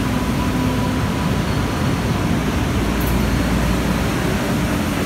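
MBTA Green Line light-rail train running at the station platform: a steady rumbling rush of noise with a faint electric hum that fades out about a second in.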